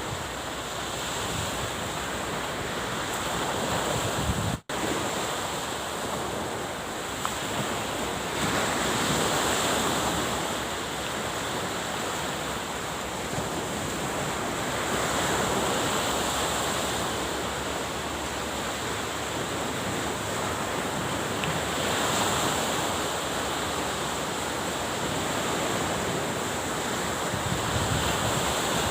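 Sea waves washing on the shore, a steady rush that swells and eases every several seconds, with wind buffeting the microphone. The sound cuts out for an instant about five seconds in.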